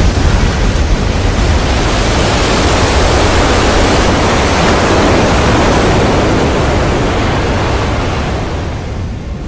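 Film sound effect of a tsunami's floodwater surging through city streets: a loud, steady rush of water that fades near the end.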